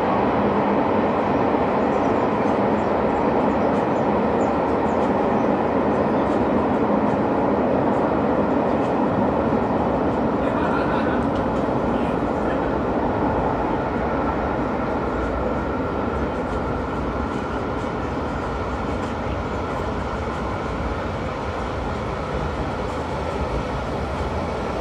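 A steady, even rumbling noise with no distinct bangs, slowly fading toward the end.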